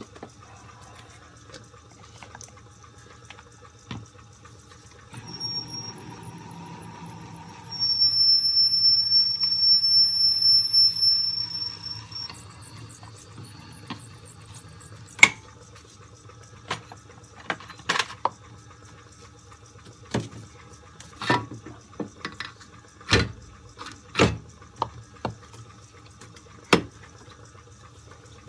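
Reamer turned slowly by a lathe in back gear, cutting through a van's kingpin bushes. From about five seconds in it squeals with a high, steady whine that grows loud for several seconds and then stops, followed by a scattering of sharp clicks and knocks.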